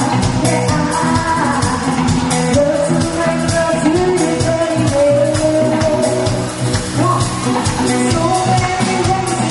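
A band playing a song, with drums and a melodic singing voice over a steady bass.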